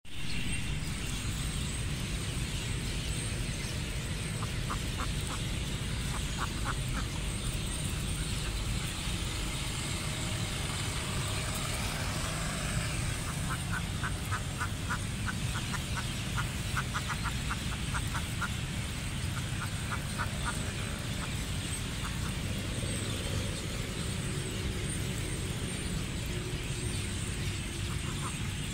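Wild mallard ducks quacking in several runs of quick, short quacks, the longest run near the middle, over a steady low rumble.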